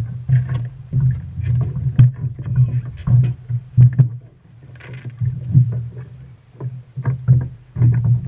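Irregular knocks and thumps of crew and gear moving in a wooden rowing longboat, over a steady low rumble of water against the hull.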